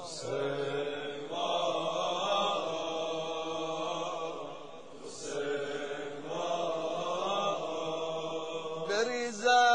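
Wordless chanted vocal drone in a Persian mourning lament: long held notes in a few phrases. A louder solo voice comes in near the end.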